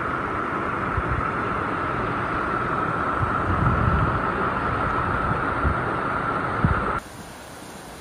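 Loud, steady rush of water with a few low thumps. It cuts off suddenly about seven seconds in.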